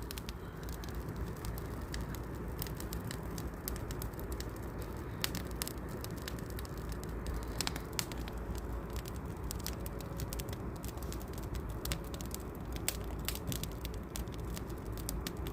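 Campfire burning, with irregular sharp crackles and pops over a steady low rumble.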